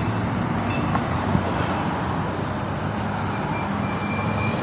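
Road traffic at a busy intersection: the steady engine and tyre noise of cars and a van driving past.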